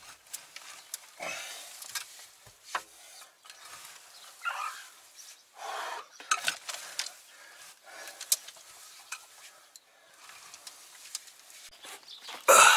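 A long-handled hand tool scraping and tearing at matted straw and manure bedding on a shed floor. It comes as irregular scratchy rustles and clicks, with a louder scuffing burst near the end.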